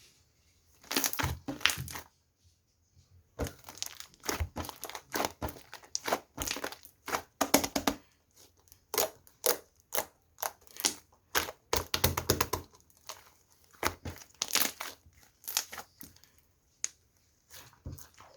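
Mugwort rice cake ('ssuktteok') slime being squeezed and worked by hand, giving an irregular run of sharp crackling pops and clicks, with a short pause about two seconds in.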